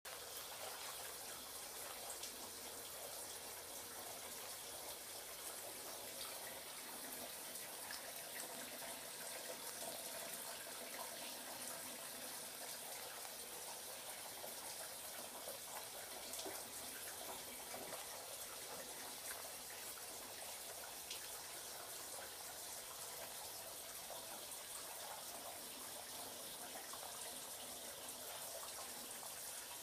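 Floating 'magic tap' water feature running: a steady stream of water falls from the suspended tap into a stone pot and spills into the basin below, making a continuous, quiet splashing.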